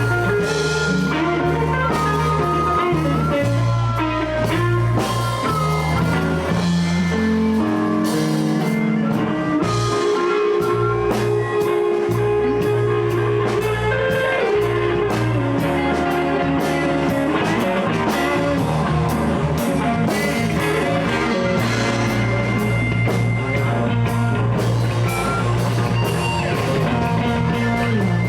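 Live blues band playing an instrumental passage with no vocals: guitar over a stepping bass line and drum kit.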